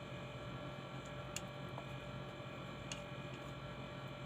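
Steady low electrical hum with two faint light clicks, a metal spoon touching a glass.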